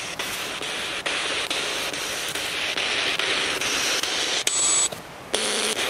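Spirit box sweeping through radio stations: a steady hiss of static chopped by quick clicks as it jumps from frequency to frequency, with a brief high whistle about four and a half seconds in.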